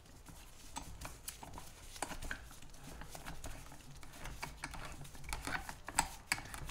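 Steel C-clamp being tightened by hand against a wood block on a scooter tire, to push the tire bead off the rim's bead seat: light irregular metal clicks and rattles from the spinning threaded screw and its sliding T-handle, busier near the end.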